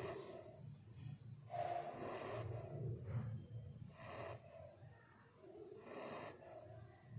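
Labrador puppy snoring in its sleep: slow, regular raspy breaths, one about every two seconds.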